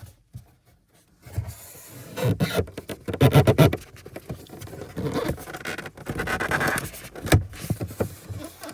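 Plastic dashboard trim and its clips being handled, scraping and clicking, from about a second in.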